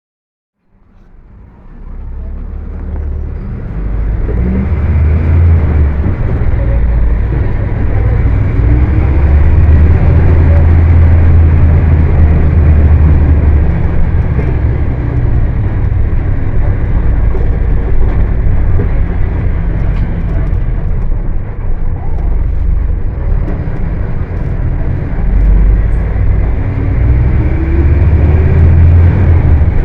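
Volkswagen 17-230 OD bus's diesel engine running hard at high revs, a deep rumble. Its pitch climbs as it revs up about nine seconds in and again near the end.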